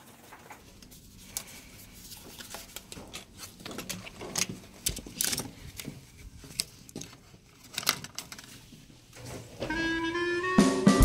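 Scattered clicks and knocks of a hotel room door and a key card being handled at the wall power slot. Background music with held notes and a bass line comes in near the end.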